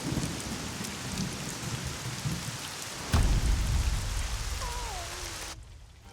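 Rain and thunder sound effect: steady heavy rain, then a sharp thunderclap about three seconds in that rolls into a deep rumble. The storm cuts off suddenly near the end.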